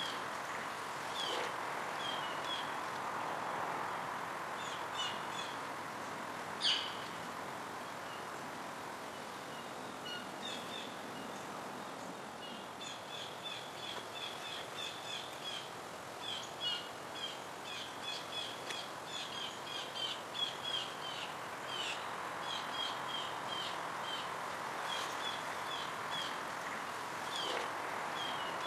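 Small birds chirping: short high chirps in quick runs, busiest in the middle, with one louder call about seven seconds in, over a steady background hiss.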